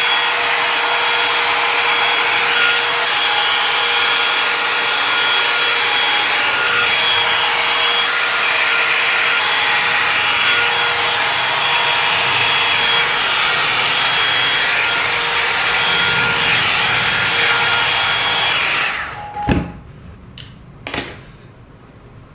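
Tymo hot-air blow-dry brush running steadily, its fan and motor blowing with a few steady whining tones in the noise. It stops near the end, followed by a few light knocks.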